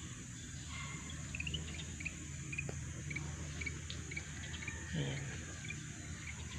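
Outdoor insects droning steadily, with a run of short, high chirps over the first few seconds and a low steady hum underneath.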